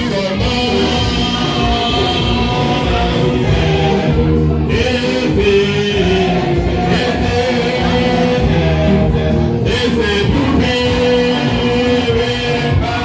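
Music with singing, and guitar among the instruments.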